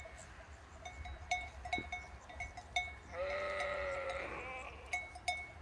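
One long bleat from a farm animal, lasting about a second and a half near the middle, over the repeated clinking of small bells.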